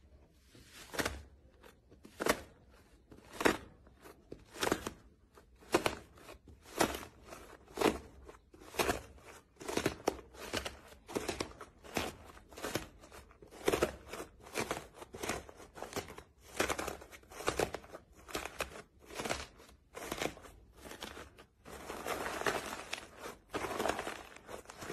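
Fingers pressing into iceberg slime and cracking its dried, crunchy crust, in short crackling crunches about once a second that give way to denser, continuous crackling near the end.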